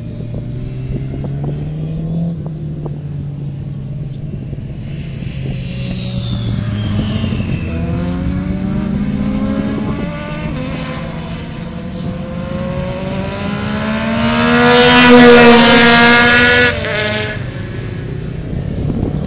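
Triumph three-cylinder sport motorcycles, a Speed Triple 1050 with a CRM aftermarket exhaust and a Daytona 675 R, running at speed on a race track, their engines rising and falling in pitch through the gears. The sound swells as a bike comes close and is loudest about fifteen seconds in, then drops away sharply.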